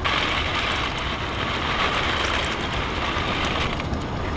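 Dry mini farfalle pasta pouring from a cardboard box into a pot of boiling water, a steady rattling hiss that begins at once and stops shortly before the end, over a low steady rumble.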